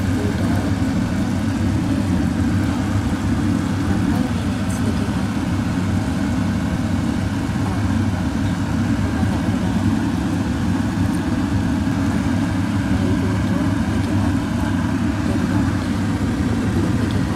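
Steady low rumbling hum, like a machine running, with no change in level and no distinct knocks or clicks.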